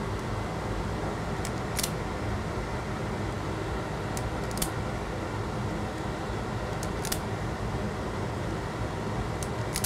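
Hand wire stripper snipping the insulation off thin wire ends: four pairs of sharp clicks, about two and a half seconds apart, over a steady background hum.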